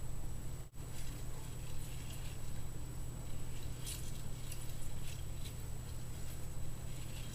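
A hamster's claws scrabbling and pattering in small, scattered scratches on a bathroom sink basin as it tries to climb the sides, over a steady low hum.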